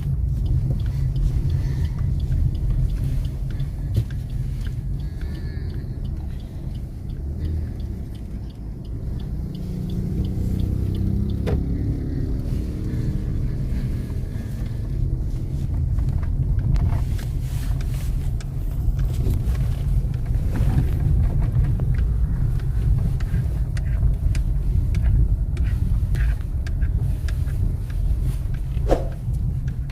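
Suzuki XL7 on the move, a steady low rumble of engine and road noise.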